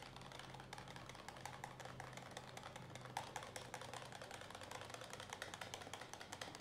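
Small metal wire whisk beating liquid in a plastic jug, its wires ticking rapidly and faintly against the jug's sides as powder is stirred into water to make dishwashing liquid.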